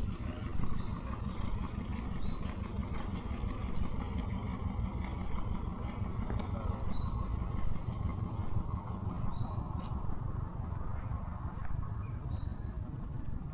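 A small bird repeating a short, high, two-part call about six times, one to three seconds apart, over a steady low rumble.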